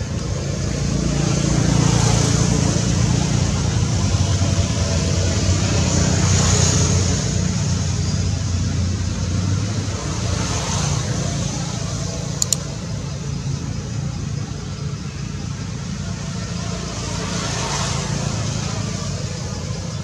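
Motor vehicle traffic: a steady low engine rumble that swells and fades as vehicles pass, with a brief sharp double click a little past halfway.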